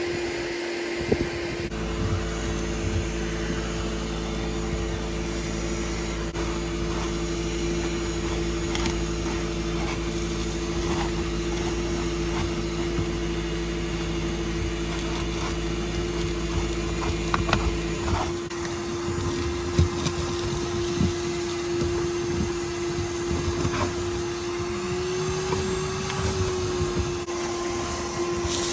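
Vacuum cleaner running steadily with a constant whine, sucking out the car's interior, with scattered clicks and knocks. A lower hum runs underneath and stops about two-thirds of the way through.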